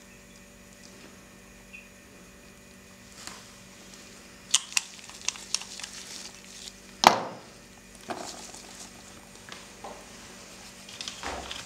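Handling of a glass nail-polish bottle and its brush over a magazine page: a run of small clicks and taps, then one sharp knock about seven seconds in. Near the end comes a rubbing scrape as a lipstick is smeared across the glossy paper.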